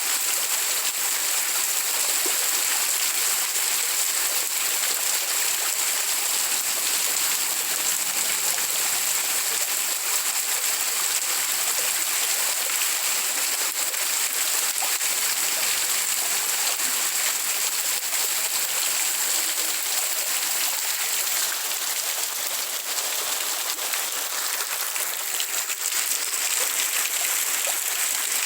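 Rain falling steadily, an even, dense hiss of water with no breaks.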